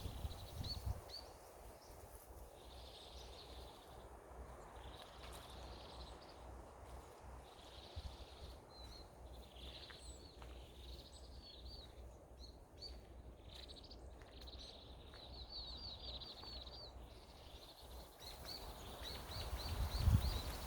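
Small wild songbirds calling in short, high notes, now and then in quick runs of several notes, over a low steady rumble of winter wind on the microphone.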